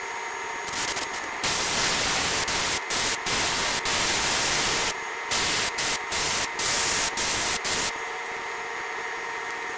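Airbrush spraying paint in about ten short hissing bursts as the trigger is pressed and released, starting about a second and a half in and stopping near the end. A quieter steady hiss with a faint hum runs underneath.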